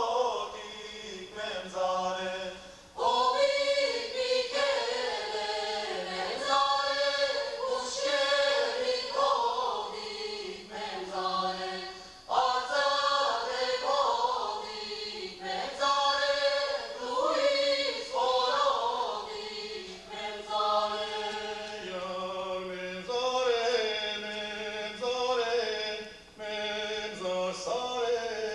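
Armenian traditional folk song sung by a group of voices without instruments, in long phrases with gliding ornamented pitches over a steady low held drone note. The phrases break briefly about three seconds in, again near the middle, and shortly before the end.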